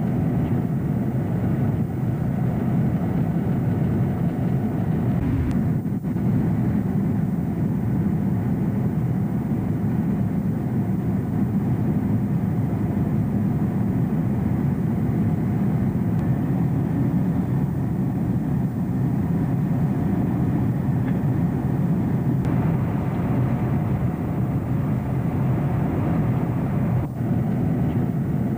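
Steady low drone of jet engines and rushing air inside an airliner cabin, with a few faint knocks.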